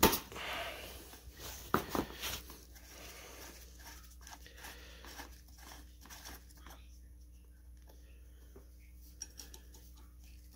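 A sharp metal clink, then two lighter knocks about two seconds in, then faint handling noise: a ring wrench and a steel transmission cooler line being worked loose from its fitting on a radiator.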